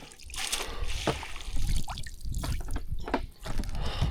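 Water splashing and dripping in irregular bursts as a pike is scooped from the pond in a landing net.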